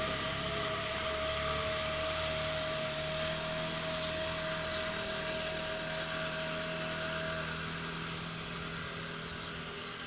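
Steady mechanical motor hum with a constant high whine, slowly fading; the whine stops about seven seconds in.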